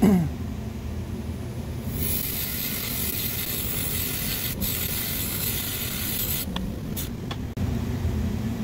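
Bench buffer motor running with a steady hum while a steel wheel rake is held against the spinning cotton buffing wheel, giving a steady hiss from about two seconds in until about six and a half seconds as the caked polishing compound and cloth fluff are raked off. A short loud sound falling in pitch opens the passage, and a few sharp clicks follow the raking.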